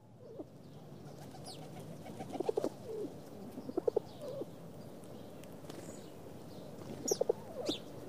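Pigeons cooing in three short bouts of low, quick-falling coos, with a few thin high chirps from another bird.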